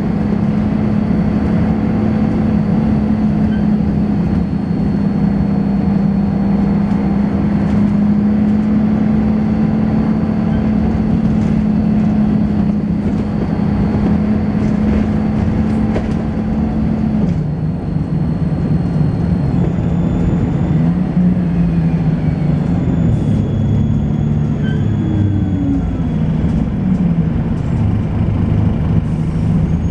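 Volvo B10BLE bus with ZF automatic gearbox under way, its horizontal six-cylinder engine running at a steady note with a thin high-pitched whine above it and a thrashing, rattly ride. A little over halfway through, the engine note drops, then wanders up and down as the bus changes speed, and the high whine shifts in pitch.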